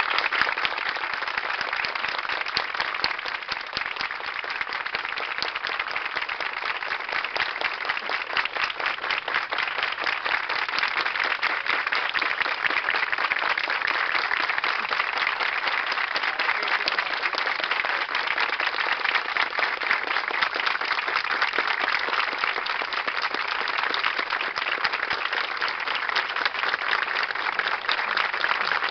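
A crowd of a few dozen people clapping their hands in one long, unbroken round of applause, a minute-long tribute applause.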